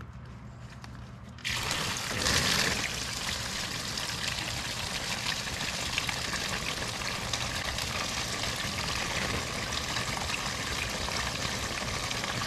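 Engine coolant gushing out of the drain hole, splashing against a plastic mailer held as a splash guard and into a drain pan. The flow starts suddenly about a second and a half in as the drain nut comes out, surges briefly, then pours steadily.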